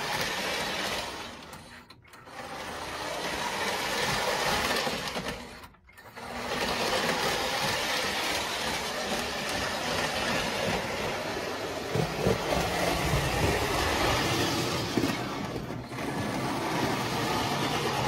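Postwar Lionel O-gauge electric trains running on the layout's three-rail track: a steady whir of the motor with the wheels running over the rails. The sound drops out briefly twice, about two and six seconds in.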